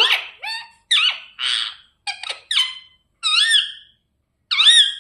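Ringneck parrot giving a string of short, high-pitched squawks and chirps, about eight calls, some rising and falling in pitch; the owner takes its mood as grumpy.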